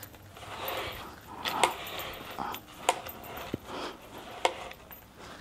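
Parts of a plush-covered cat tree being handled and fitted together: fabric rustling with about four sharp knocks as the top perch is set in place.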